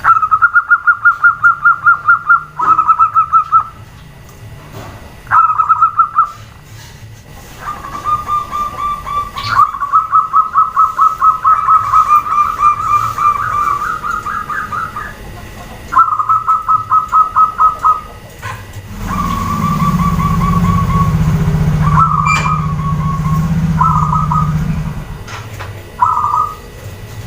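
Zebra doves (perkutut) calling in repeated bouts of rapid, evenly pulsed trills, about seven pulses a second, some bouts a second long and one running several seconds. About two-thirds of the way in, a loud low hum sounds under the calls for around six seconds.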